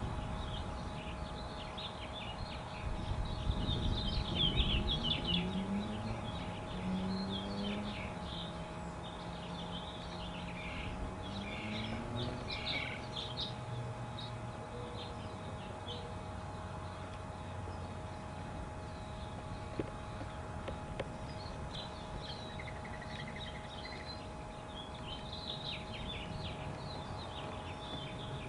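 Small birds chirping and twittering in quick, scattered bursts. Underneath, a low mechanical drone rises in pitch a few seconds in and fades out around the middle. A steady faint hum runs beneath it all.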